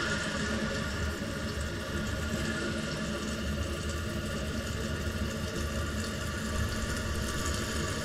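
Toilet tank fill valve (ball cock) refilling the tank: a steady hiss of water running in, with a thin whistling tone. The valve is being tested after its float was lowered, so it shuts off about an eighth of an inch below the top of the overflow tube.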